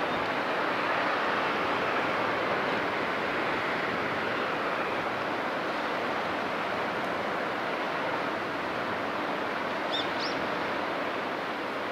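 Steady rushing of wind and water, including the wash of a passing container ship's hull. Two quick high bird chirps come about ten seconds in.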